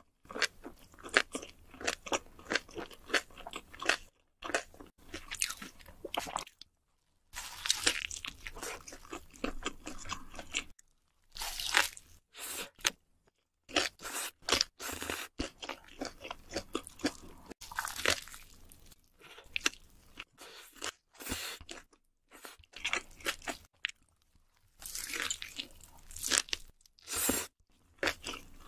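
Chewing and crunching while eating a burger: crunchy bites and chewing come in bursts, broken by short pauses.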